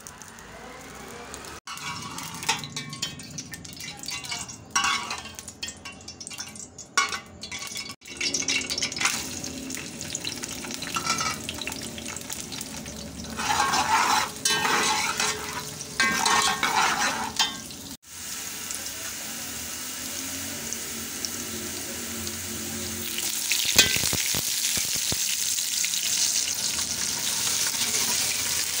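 Sliced onions frying in hot oil in a metal pot, sizzling, while a steel ladle stirs and scrapes against the pot in strokes and bursts. The sizzle turns into a louder, steady hiss in the last few seconds, with one sharp knock of the ladle.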